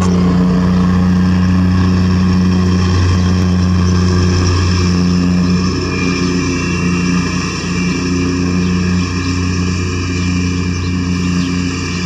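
An engine idling steadily, a loud, even low hum that eases slightly about halfway through.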